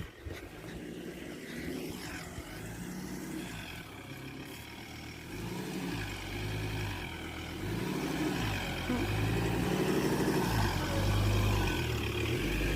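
Ford Ranger's 3.2-litre five-cylinder turbodiesel engine pulling off-road while towing a trailer loaded with bricks. The engine note rises and falls repeatedly, growing louder about halfway through.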